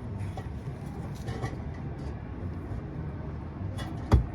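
Steady low rumble, with one sharp knock about four seconds in.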